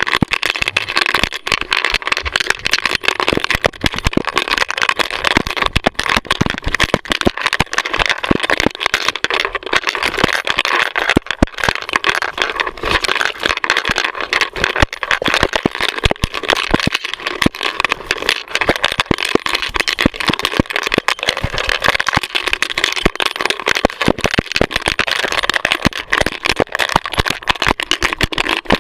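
Dense, continuous rattling and knocking from a GoPro camera strapped to a running dog, jostled with every stride, over a steady rushing noise.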